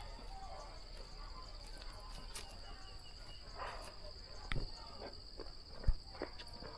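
Insects trilling steadily in one high, even tone. From about four and a half seconds in come a few knocks, the loudest a sharp thump near the end.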